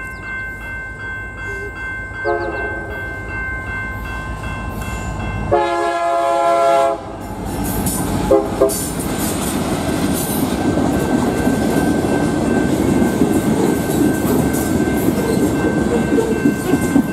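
Freight train horn giving a short toot, then a longer blast about five and a half seconds in and one more brief toot, followed by the train's boxcars rumbling and clattering past on the rails. A grade-crossing bell rings steadily underneath.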